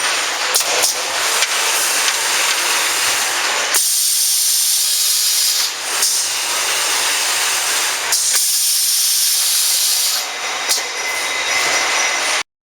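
CNC wire bending machine at work: a loud, steady hiss with a few sharp clicks in the first seconds. The hiss turns thinner and brighter in stretches partway through, then cuts off suddenly near the end.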